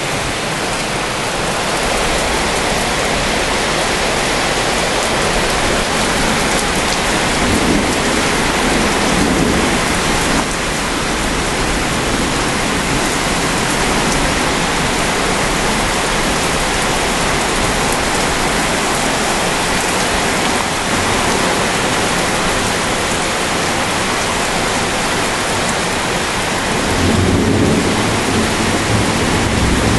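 Heavy rain falling steadily in a thunderstorm, with low rumbles of thunder about eight seconds in and again near the end.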